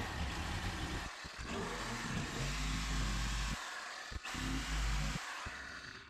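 Reciprocating saw cutting out an opening in drywall, running in several stretches with short pauses between cuts, then stopping just before the end.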